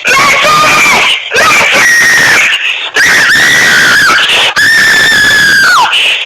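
A screaming ringtone: four loud, long, high-pitched screams in a row, each held steady and falling in pitch as it breaks off. It cuts off suddenly at the end.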